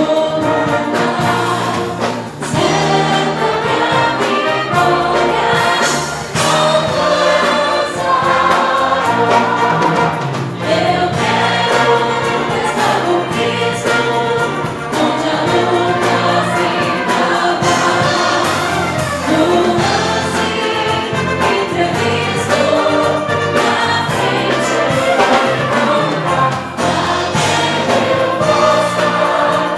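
Choir singing a gospel song with instrumental accompaniment, continuous and loud.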